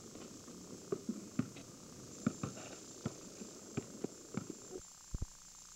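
Basketball bouncing on a paved driveway: a string of irregular thumps, closer together after the middle, under a steady high-pitched hiss from the camcorder recording.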